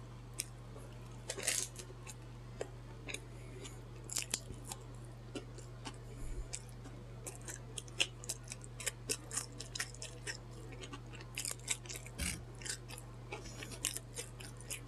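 Close-miked chewing of a Subway sandwich: many small crunches and wet mouth clicks and smacks, with a louder crunch about a second and a half in. A steady low hum runs underneath.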